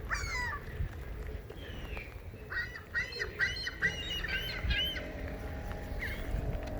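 Seagulls calling: a few cries at the start, then a quick run of repeated squawking calls, with one more cry near the end.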